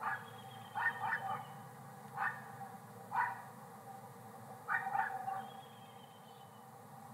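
A series of short, sharp barks, about five in uneven groups, some doubled, over the first five seconds or so.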